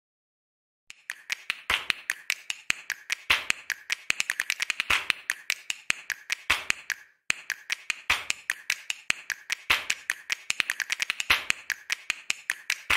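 Ticking sound effect of a countdown intro: rapid sharp ticks, roughly eight a second, with a heavier tick about every second and a half. The ticking starts about a second in and breaks off briefly a little past the middle.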